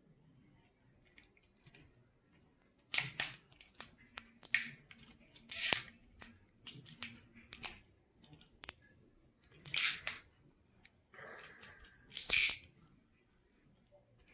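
Packaging being handled during an unboxing: irregular bursts of rustling and scraping, with a few sharp clicks in between.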